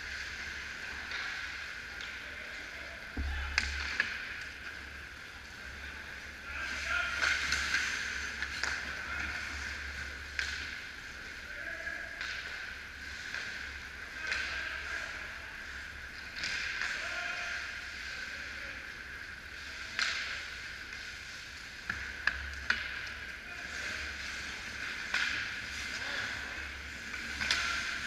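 Ice hockey play: skates scraping and carving on the ice, with a few sharp clacks of sticks and puck and faint distant voices of players.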